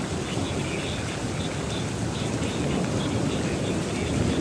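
Rain falling steadily under a low, continuous rumble of rolling thunder.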